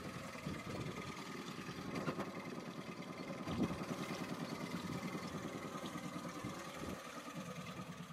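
Small boat's engine idling with a steady, evenly pulsing sound.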